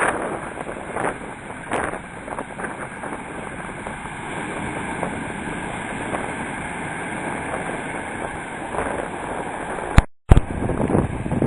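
Wind buffeting the microphone over the rush of surf and moving water. About ten seconds in, a sharp click and a brief total cut-out break the sound.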